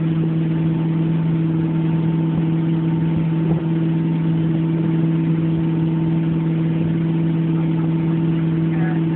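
Tow boat's engine running steadily at towing speed, an even low drone that holds one pitch, over a steady rush of churning wake water.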